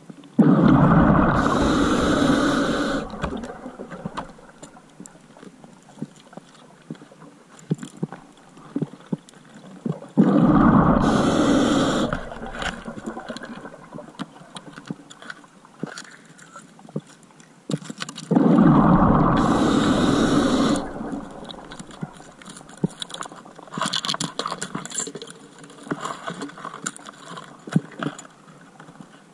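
A scuba diver's exhaled bubbles rushing out of the regulator three times, about every eight to nine seconds. Faint clicking and crackling fill the gaps between breaths.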